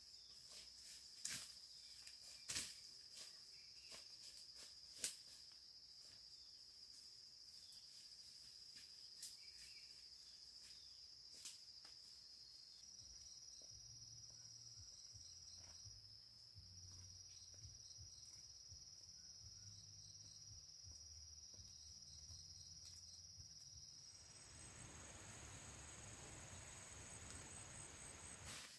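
Faint, steady high-pitched insect trill, like crickets, with a few soft clicks in the first half. The trill jumps to a higher pitch twice, about halfway through and again near the end, where a light hiss joins it.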